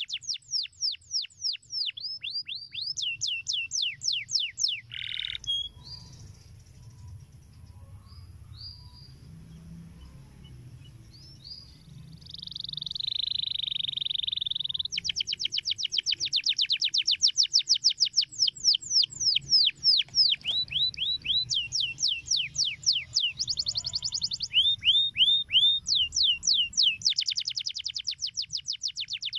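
Domestic canary singing: long, fast trills of rapidly repeated down-slurred notes. About five seconds in the trill breaks off into a pause with a few scattered notes and a buzzy held note, then long trills start again about fifteen seconds in.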